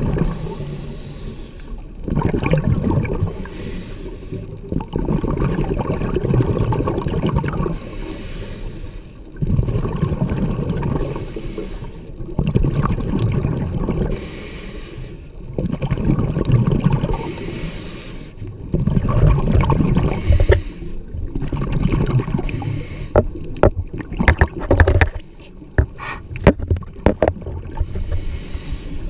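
Scuba diver breathing through a regulator underwater: a hiss on each inhale, then a rush of exhaled bubbles, repeating every three seconds or so. A few sharp clicks come near the end.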